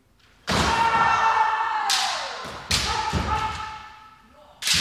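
Kendo sparring: about half a second in, a sharp stamp and bamboo shinai strike with a long kiai shout. More strikes and a second shout follow near the three-second mark, and another strike comes near the end, all echoing in a large hall.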